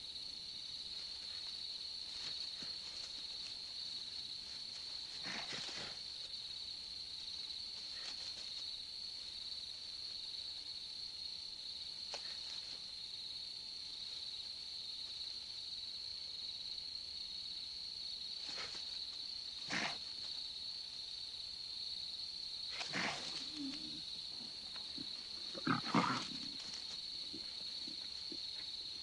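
Crickets chirring steadily and high through the night, while lion cubs tussling with a wounded porcupine snarl and growl in short bursts, about seven times, the loudest near the end.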